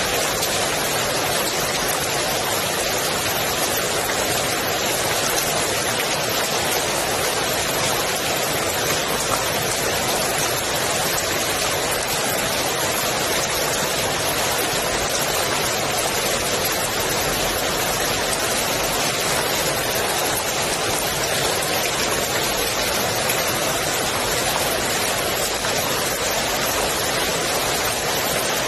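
Steady rain falling on the water of a swimming pool: an even, unbroken hiss of countless drops.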